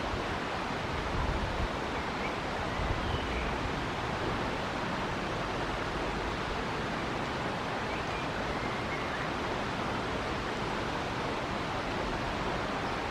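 River water flowing steadily, a continuous rushing noise. A few faint bird chirps sound now and then, and wind rumbles on the microphone in the first few seconds.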